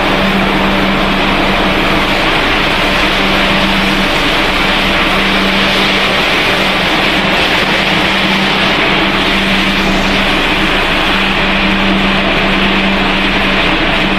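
Snack-pellet production line machinery running: a loud, steady whirring noise with a constant hum.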